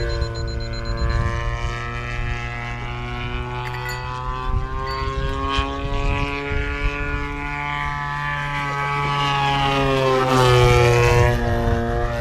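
Radio-controlled model airplane in flight, its motor and propeller making a steady hum that drifts slowly in pitch. It grows louder toward ten seconds in and drops in pitch as the plane passes close.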